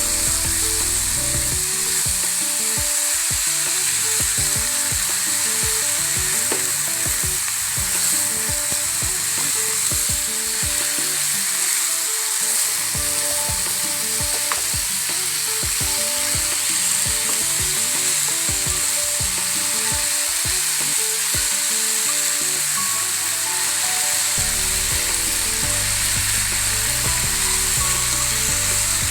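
Dried tapioca, onion and coconut sizzling steadily in a hot pan while being stirred, with short clicks and scrapes of the spatula against the pan.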